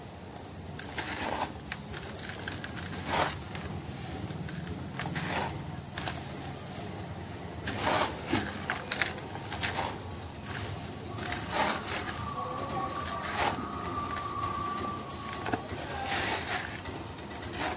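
Fingers scraping and rubbing sand against the inside wall of a bowl: a run of irregular, gritty scrapes.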